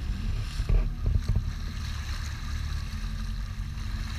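Boat's engine running steadily with a low hum, with wind buffeting the microphone. A few short knocks come about a second in.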